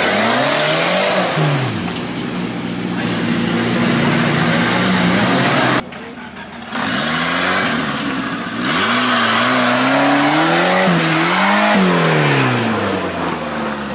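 Off-road competition 4x4's engine revving, its pitch rising and falling over and over. The sound drops away abruptly for about a second around six seconds in, then the revving resumes.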